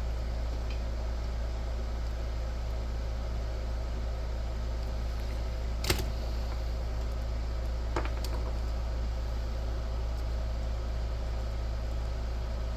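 Steady low background hum, broken by two sharp clicks about six and eight seconds in, from a plastic fuse holder and its blade fuse being handled.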